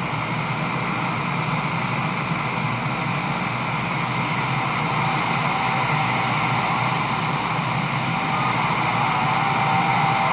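CB radio receiver hissing with steady static on an open channel while tuned for distant skip. Faint thin whistles come through near the end.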